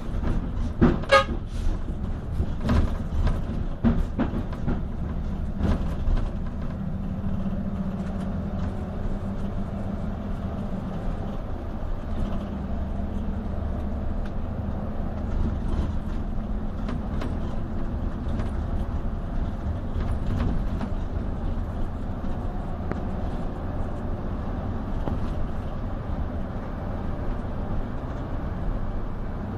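Hino RG coach's engine and road noise heard from inside the cabin while driving: a steady low rumble. A few sharp knocks or rattles come in the first six seconds.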